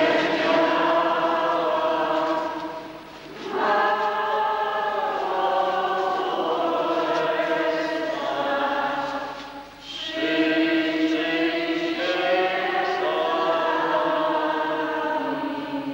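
A group of voices singing a Lenten hymn together in long, slow phrases, with short breaks about three and ten seconds in.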